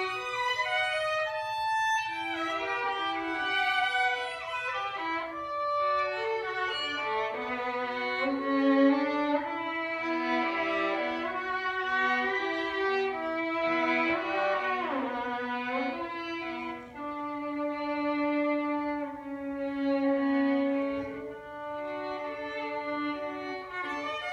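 Two bowed violin-family instruments playing a duet, with interweaving melodic lines. A fast downward run comes about halfway through, followed by a long held low note.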